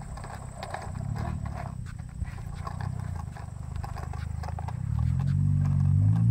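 Plastic wheels of a toy push-cart walker rolling over asphalt, a low rumble with scattered clicks. About four and a half seconds in, a low hum sets in, rising in pitch and growing louder.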